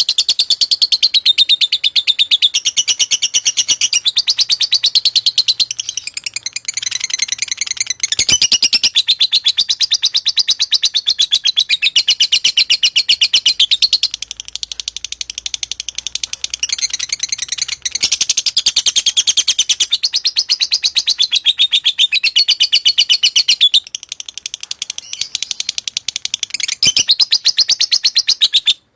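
Lovebird singing a long, unbroken stream of very rapid, high chirps, with short breaks about eight and eighteen seconds in.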